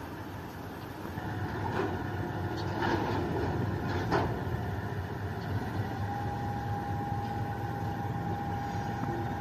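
TGM8KM diesel-hydraulic shunting locomotive running under a steady low rumble while it shunts railway cars. A few sharp clanks sound in the first half, and a thin steady squeal starts about halfway.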